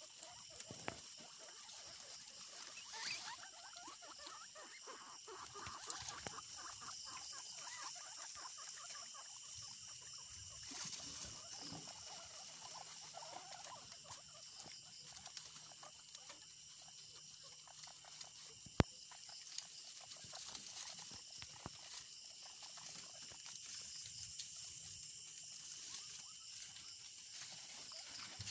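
Guinea pigs chewing and tearing fresh grass: a faint, dense stream of small crunching and rustling sounds, with a steady high-pitched whine in the background. One sharp click about two-thirds of the way through.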